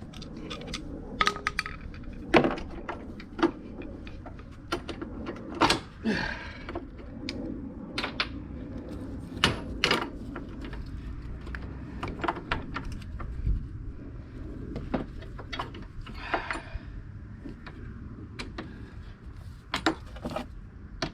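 Irregular metallic clinks, taps and knocks of hand tools against steel parts as spring clips and mounts are worked loose on a Gravely zero-turn mower deck, with a couple of short scrapes.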